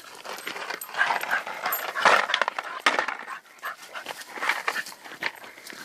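Old English Bull Terrier cross panting hard in quick, irregular gusts.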